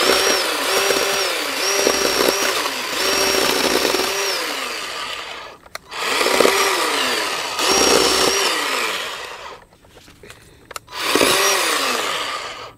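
Greenworks 40V battery-powered 12-inch chainsaw running in three trigger runs while cutting small limbs. The motor's pitch sags each time the chain bites into the wood and recovers as it frees.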